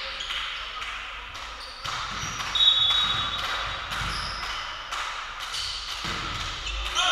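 Volleyball play in a sports hall: repeated sharp smacks and bounces of the ball, with short high squeaks among them and the hall's echo, loudest a little over two seconds in.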